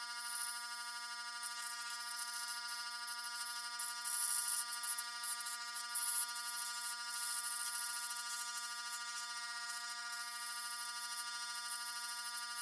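Scroll saw running with a steady buzzing hum, its reciprocating blade cutting a thin wooden stencil, with a hissing cutting noise that swells and fades as the work is fed.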